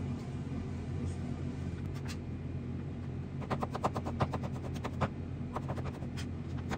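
A knife chopping on a cutting board: quick runs of sharp taps starting about halfway through, over a steady low hum.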